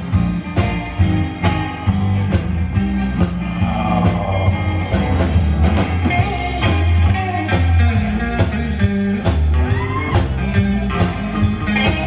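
Live rockabilly trio playing an instrumental passage: a hollow-body electric guitar plays lead lines with bent notes over an upright bass and a drum kit keeping a steady beat.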